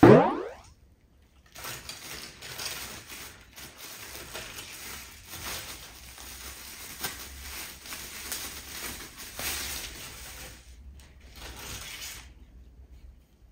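A short, loud rising tone right at the start. Then continuous rustling and crinkling of honeycomb kraft packing paper and plastic wrap as an item is pulled out and unwrapped, stopping about a second before the end.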